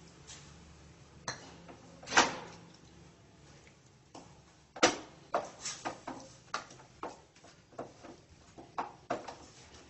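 Wooden spatula knocking and scraping against a stainless steel pan while stirring masala. The loudest knock comes about two seconds in, another just before five seconds, then a run of lighter taps about two a second.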